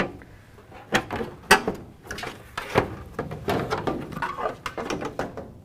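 Clicks and knocks of a humidifier's cover being unclipped and lifted off, several sharp snaps followed by a spell of rattling and scraping as the cover comes away.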